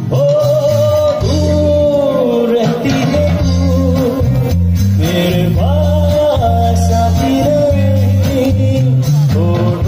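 Live band playing: a male singer holding long, bending notes over electric guitar, bass guitar and drums.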